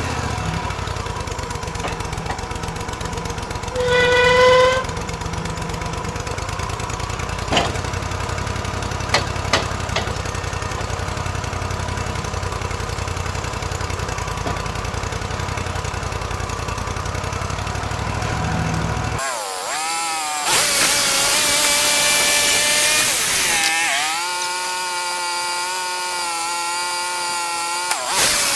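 Portable bandsaw sawmill's engine running steadily, with a short whine about four seconds in and a few light clicks. About two-thirds of the way through, the engine hum gives way to a high, wavering whine as the band blade saws through a log.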